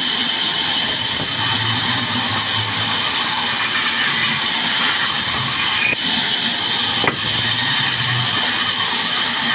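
Band saw ripping a small bark-covered log lengthwise: steady sawing noise over a low motor hum that comes and goes as the log is fed through. A sharp click about seven seconds in.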